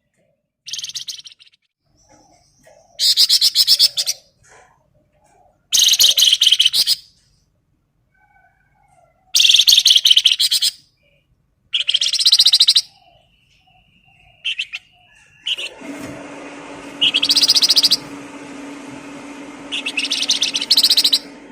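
A songbird sings short bursts of rapid, high trilled chatter, about seven of them, each a second or so long, with pauses between. About two-thirds of the way through, a steady low hum and hiss comes in beneath the last two bursts.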